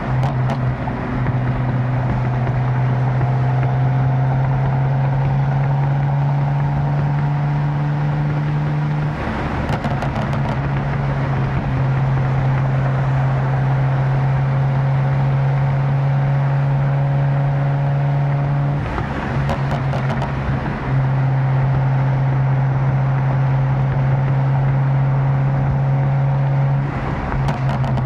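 Tuned BMW M4 engine cruising at steady revs with a steady low drone. Three times (about 9 s in, about 19 s in and near the end) the drone breaks off for a second or two and sharp exhaust crackles and pops come through as the throttle lifts.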